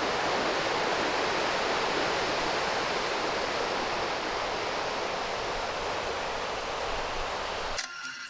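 Sea surf on a sandy beach, a steady rushing wash of breaking waves, cutting off suddenly near the end.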